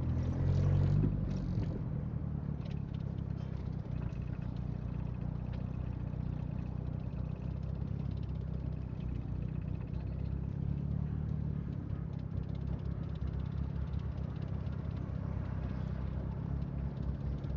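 Car engine idling steadily, heard from inside the car's cabin, with a brief louder surge in the first second or so.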